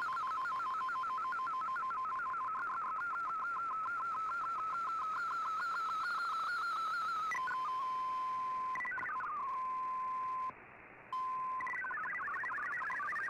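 Audio of a shortwave MFSK digital-mode data signal: the wavering tone of a picture transmission ends about seven seconds in, then comes a steady single tone with a short falling sweep and a brief dropout, and near the end the rapid hopping tones of MFSK text data begin.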